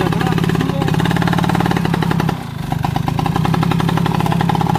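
Engine of a stripped-down log-hauling motorcycle running steadily, with two heavy logs strapped along its sides. It dips briefly about halfway through, then picks up again.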